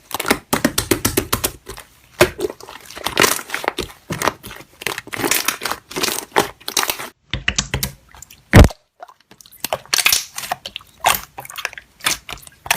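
Slime being pressed and squished by hand, a dense run of crunchy crackles and clicks. After a short pause it gives one loud pop, about two-thirds of the way through, and the crackling then resumes.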